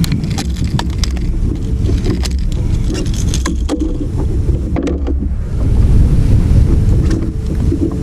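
Wind buffeting the microphone on a kayak, a low rumble that is loudest about six seconds in. Under it are a faint steady hum and scattered sharp clicks and knocks, mostly in the first half.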